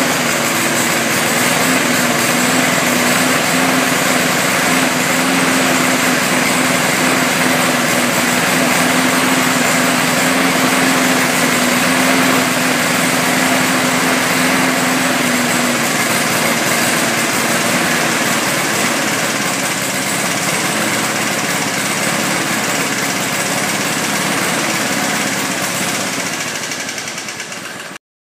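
Briggs & Stratton lawnmower engine running steadily with a broken flywheel key, which throws off its ignition timing. The sound fades out near the end.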